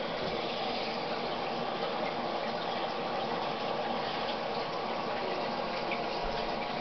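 Steady rushing of running water with a faint hum underneath.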